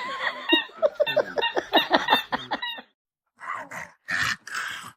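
A dog vocalizing: a quick run of short pitched whines and yips for about three seconds, then after a brief silence, rough noisy sounds without clear pitch.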